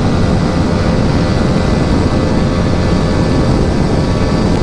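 Yamaha R15 V3's single-cylinder engine running through an Akrapovic exhaust, held steady at about 140 km/h in fifth gear, with heavy wind rush over the microphone.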